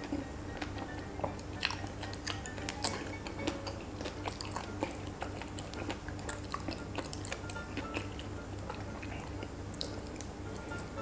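Close-miked chewing of a soft, saucy bread kebab, with many short wet mouth clicks and a fresh bite near the end, over background music.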